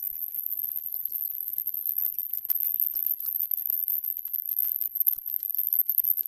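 Steady, very high-pitched whine with irregular crackling static, the noise of an FPV video link's audio channel rather than any motor or wind. The crackles come thicker and louder toward the end.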